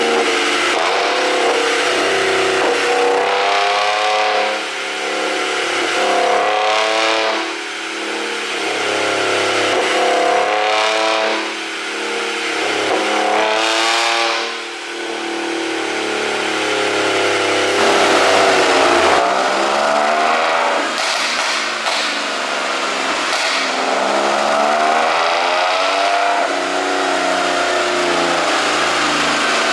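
Audi B8 S4's supercharged 3.0 V6 engine and exhaust, revving up and dropping back again and again, with sharp pops on lift-off from a tune that makes the exhaust pop and crackle on overrun.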